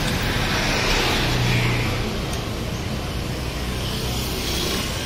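Steady road traffic noise from motor vehicles going past on the street, with one engine growing louder for a moment about a second and a half in.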